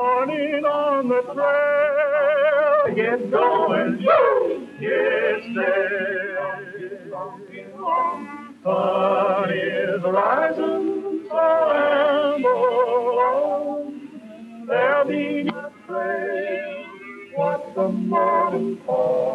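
Song on an old film soundtrack: singing with a wide vibrato and yodel-like leaps in pitch, in phrases broken by short pauses, over music.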